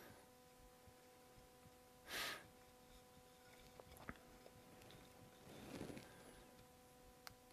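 Near silence: room tone with a faint steady electrical hum. About two seconds in there is a short, sharp hiss of breath, and later a few faint small clicks.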